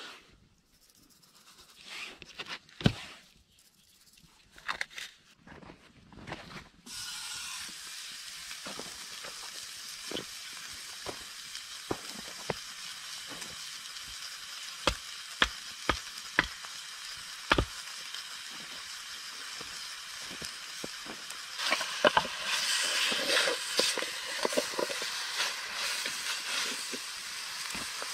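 A steak sizzling in a frying pan over a wood fire in a brick stove, with sharp pops breaking through the steady hiss. The sizzle starts suddenly about a quarter of the way in, after some handling knocks, and grows louder near the end.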